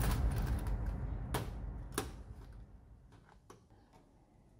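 Metal keys and a steel split ring clinking as they are handled: a few sharp clicks, the two loudest about a second and a half and two seconds in, with fainter ones later, over a low rumble that fades out.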